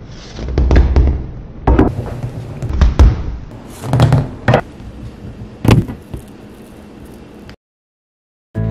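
Whole passion fruits rolling across a wooden tabletop: a low rolling rumble broken by a string of sharp knocks as the fruits hit one another. The sound fades and cuts off about seven and a half seconds in.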